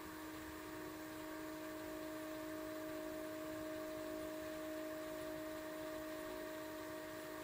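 Astro-Physics Mach2GTO German equatorial mount's drive motors slewing at 600x speed: a faint, steady hum with a clear steady tone.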